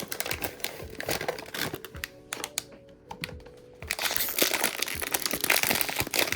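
Blind-box toy packaging being opened by hand: scattered clicks and light rustling, then loud, continuous crinkling of the wrapping from about four seconds in.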